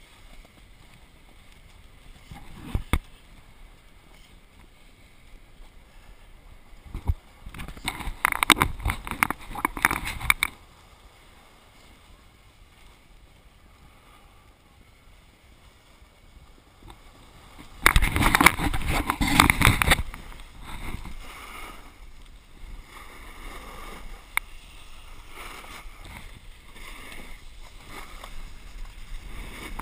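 Snowboard sliding over packed snow, with the edges scraping loudly in two rough stretches of a few seconds, about eight and eighteen seconds in. A sharp knock comes about three seconds in.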